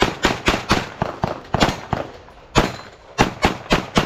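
Semi-automatic pistol fired rapidly during a USPSA stage run: a quick string of loud shots about four a second, a pause of about a second after the first two seconds, then another fast group of shots near the end.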